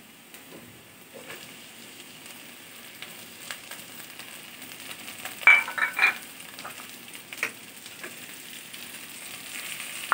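Sliced onions and green chillies frying in hot oil in a wok, with a steady sizzle. About five and a half seconds in comes a quick cluster of sharp clacks as cut potato sticks and jackfruit seeds go into the pan. The sizzle grows a little louder near the end.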